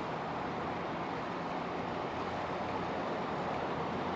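Steady low rumble and hiss of a fishing trawler's diesel engine running as the vessel pulls slowly away from the dock.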